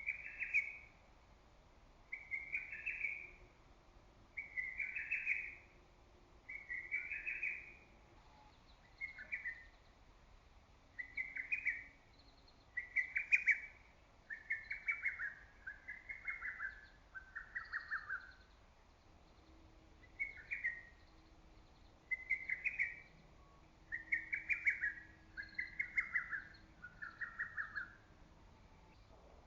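Lesser cuckoo (hototogisu) singing its loud, staccato phrase over and over. It gives about fifteen phrases of roughly a second each, with short pauses between them, and several phrases step down lower in pitch.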